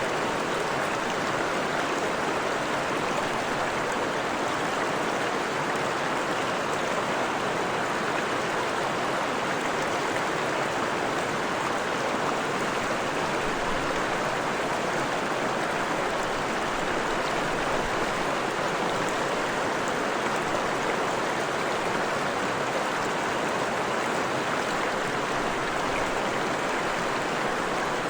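Freshwater forest stream running, a steady rushing and babbling of water with no change in level.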